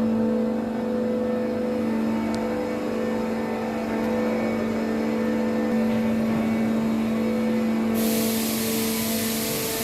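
Heavy construction machinery running with a steady droning hum. A hiss joins suddenly about eight seconds in.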